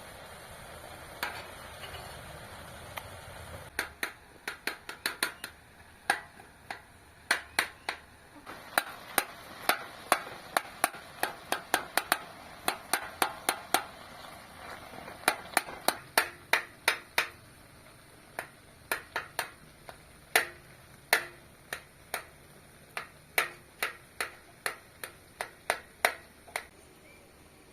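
A long series of sharp, irregular knocks or taps, about one or two a second, beginning about four seconds in and stopping just before the end.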